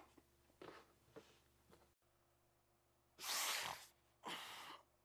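A man breathing sharply, two heavy breaths in a row about three and four seconds in, after a few faint breaths.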